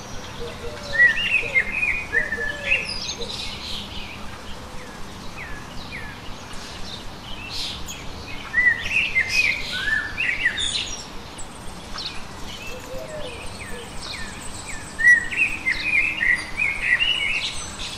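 Small songbirds chirping and twittering in quick phrases, in three louder spells about a second in, midway and near the end, over a steady hiss of outdoor background noise.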